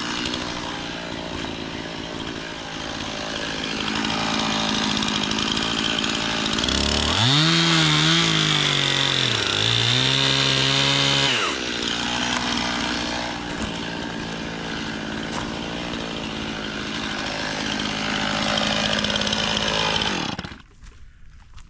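Stihl MS291 two-stroke chainsaw running and cutting through wood, its engine pitch dipping and recovering in the cut about halfway through. It cuts off near the end.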